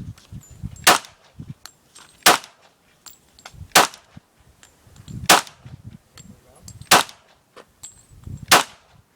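Gunshots fired at a steady pace, six loud shots about one and a half seconds apart, with fainter cracks between them.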